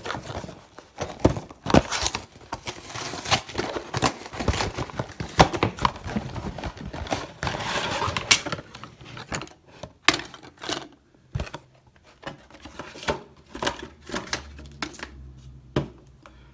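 Fluidmaster fill valve kit box being opened and unpacked by hand: cardboard and plastic packaging rustling and crinkling, with many scattered clicks and knocks. It is busiest in the first half and thins out to sparser clicks later on.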